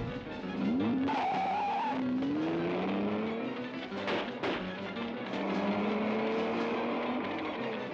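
Car engine revving hard, its pitch rising as it accelerates, with a brief tyre squeal about a second in and a couple of sharp bangs around four seconds in, over film-score music.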